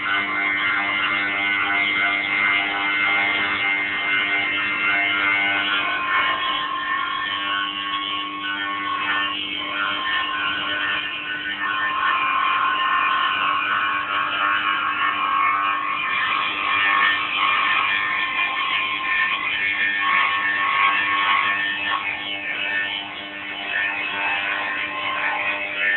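Small milling machine running steadily as it mills bassoon reed cane, a mechanical whine made of several held tones over a noisy hiss. A higher tone joins about six seconds in and drops in and out over the next fifteen seconds.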